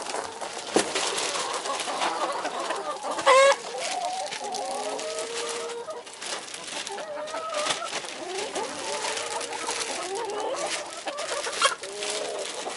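A flock of chickens clucking and chattering as they feed, many short calls overlapping, with one loud, short call about three seconds in.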